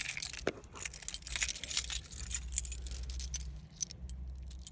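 A bunch of keys jangling and clinking irregularly as someone searches through them.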